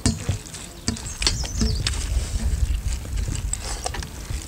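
Eating sounds: fingers mixing rice on steel plates and chewing, with scattered clicks and clinks over a steady low rumble.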